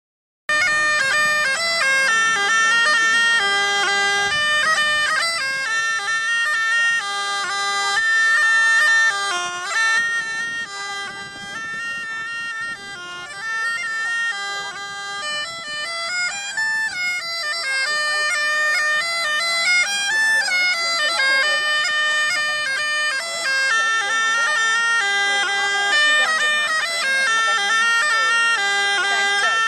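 Bagpipes playing a tune over a steady drone, starting about half a second in.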